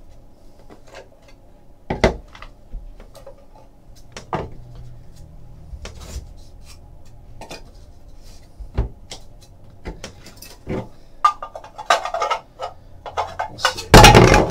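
Trading cards and clear plastic card holders handled on a desk: scattered clicks, taps and clatter, thicker toward the end, with one loud knock near the end.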